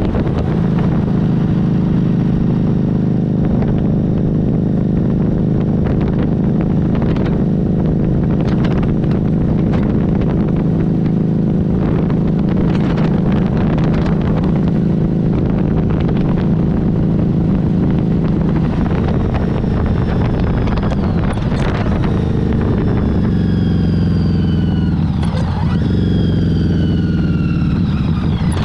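Harley-Davidson Street 500's V-twin engine running at a steady cruise, with wind and road noise. About twenty seconds in, the engine note falls as the bike slows, then rises and falls again near the end.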